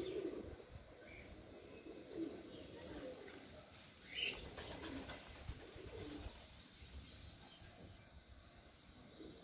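Faint outdoor bird calls: short low coos repeating every second or so, with a few brief higher chirps about four seconds in.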